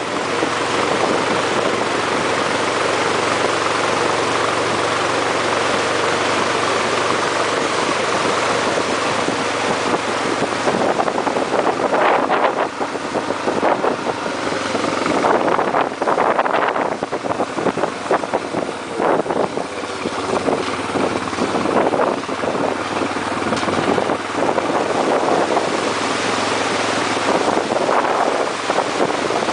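Toyota Tundra pickup wading through a flooded dirt road: water surging and splashing off its front, heavier from about ten seconds in, over a steady engine hum. Wind buffets the microphone.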